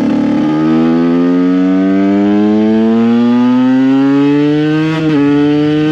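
Two-stroke supermoto motorcycle engine pulling hard through one gear, its pitch rising steadily for about four seconds, then an upshift about five seconds in drops the pitch before it pulls on.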